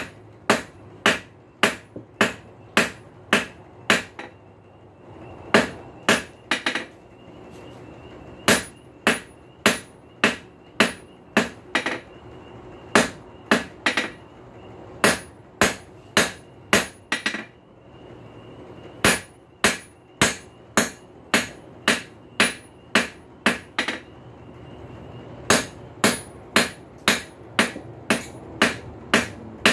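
Hand hammer striking a red-hot high-carbon steel bar on an anvil as it is drawn down into a square punch. The blows come steadily at about two a second in runs broken by short pauses, and the anvil rings under each one.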